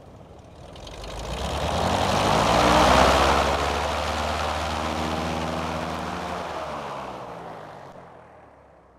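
Large propeller wind machine spinning up to blast a gust of air, a rushing whoosh over a propeller hum that is loudest about three seconds in. It then winds down over the next several seconds, the hum falling in pitch as it fades.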